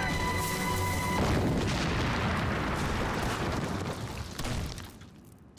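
A film explosion effect. About a second in comes a big blast, and its rumble fades away over the next few seconds. Background music cuts off at the blast.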